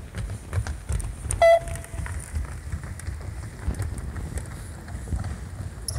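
One short electronic beep from a beep-test (shuttle-run) timing program about a second and a half in, the signal for the runners to turn at the line, over the low thudding of players' running footsteps on the sports hall floor.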